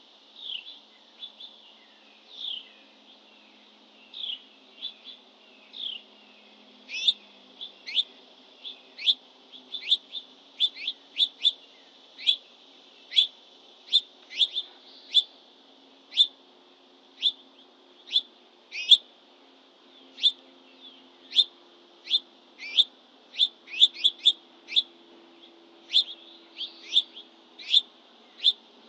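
A songbird calling with short, sharp chirps, each a quick downward slur, repeated irregularly at about one or two a second.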